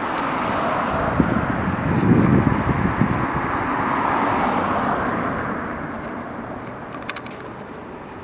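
A vehicle passing in the street, its noise swelling to its loudest a few seconds in and then fading away.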